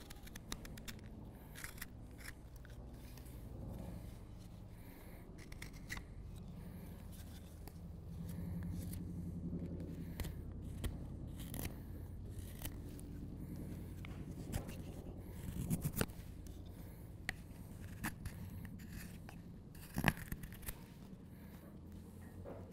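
Carving knife paring shavings from an alder spoon blank: a run of short, crisp slicing cuts and scrapes, a few louder ones later on.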